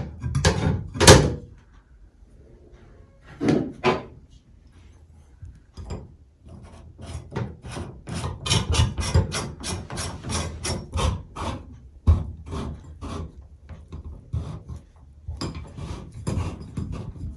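Scraping and rubbing of hand and tools against tub-shower faucet trim parts as they are fitted back on. A few louder scrapes come at the start, then a quick run of short strokes, about four a second, in the middle.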